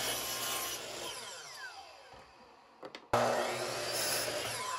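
Electric compound miter saw cutting through wooden crown molding, its motor winding down with a falling whine over the first couple of seconds. About three seconds in the saw starts again suddenly and loudly, cuts, and begins to spin down near the end.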